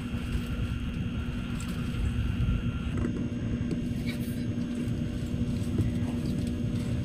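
Tokaido Shinkansen train running at speed, heard from inside the passenger car: a steady low rumble with a constant hum.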